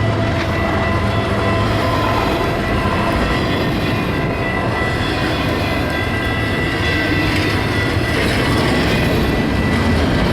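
Cars of a long double-stack intermodal freight train rolling past with a steady rumble of wheels on rail and a faint high squeal from the wheels. A low hum fades about two seconds in.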